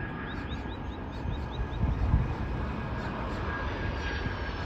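Distant jet aircraft engines whining steadily over a low wind rumble. A quick run of short, high, rising chirps sounds in the first two seconds.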